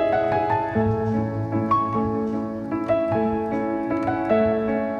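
Instrumental piano music, with single notes and chords struck and left to ring.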